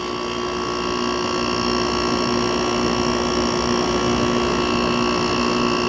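Older Haier HWF05XCA 5,000 BTU window air conditioner running in cooling mode, its Matsushita compressor very quiet: a steady hum of a few constant tones under the fan's rushing air, rising slightly in level over the first second or so and then holding even.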